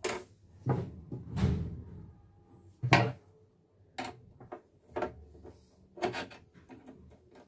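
Clicks and clunks from the exposed needle-bar and hook mechanism of a portable embroidery machine being worked by hand: about a dozen irregular sharp knocks, the loudest about three seconds in.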